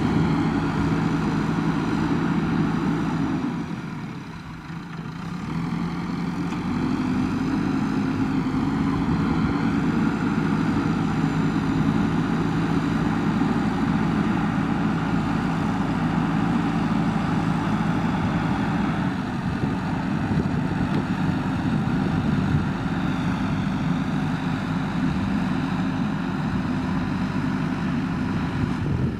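JCB backhoe loader's diesel engine running steadily as it works, dropping briefly about four seconds in and then picking up again.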